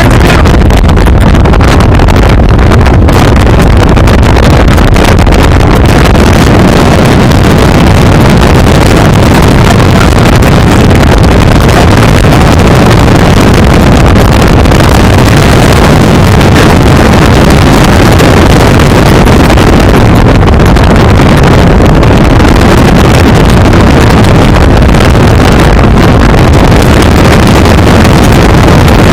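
Strong wind buffeting the microphone: a loud, steady low rush that does not let up.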